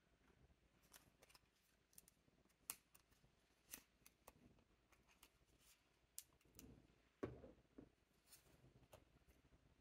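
Near silence broken by faint handling sounds of paper crafting: scattered small clicks from a tape runner and cardstock being handled, with a brief rustle and tap about seven seconds in as the paper piece is set down.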